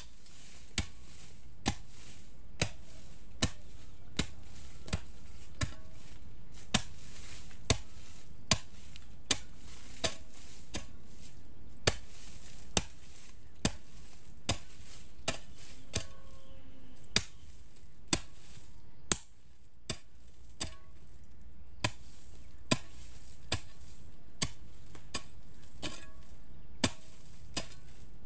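A hoe chopping into the soil of a field to dig planting holes for corn. Sharp strikes come steadily, a little more often than once a second, with a couple of short pauses.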